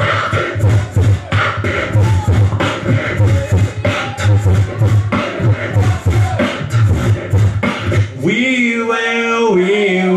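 Human beatbox performed live into a handheld microphone: a fast rhythm of vocal kick-drum and snare sounds. About eight seconds in the beat stops and a held, pitched vocal tone takes over, stepping between a few notes.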